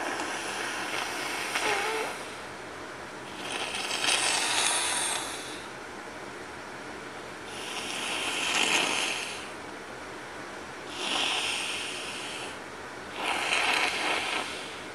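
A person blowing a congested, stuffy nose in about five hard blows a couple of seconds apart, with a short whistle in the first two.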